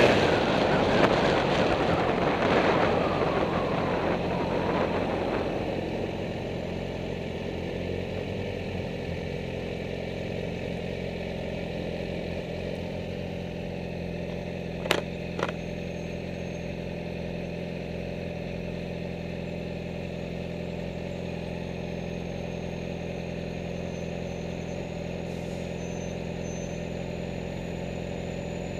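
Wind rush and the 2008 Yamaha R6's inline-four engine fade as the motorcycle slows to a stop. The engine then idles steadily. Two short clicks come about fifteen seconds in.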